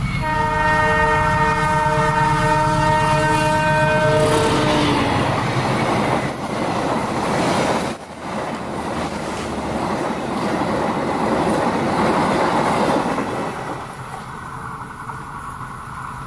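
Diesel-hauled Taksaka express passenger train sounding a long multi-note horn chord for about five seconds, the chord dropping slightly in pitch at its end as the locomotive passes. Then comes the rumble and clatter of the coaches' wheels on the rails at speed, fading over the last couple of seconds as the train moves away.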